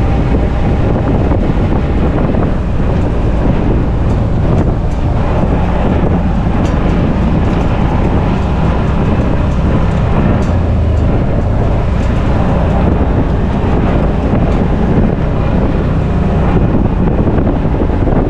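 Off-road vehicle's engine running steadily as it drives a rough dirt trail, with occasional knocks from the bumps and some wind on the microphone.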